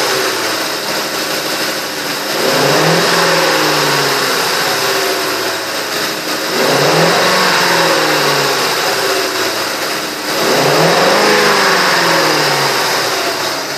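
2003 Ford F-150's Triton V8 running just after start-up and being revved three times, each rev climbing and then falling back to idle over about three seconds.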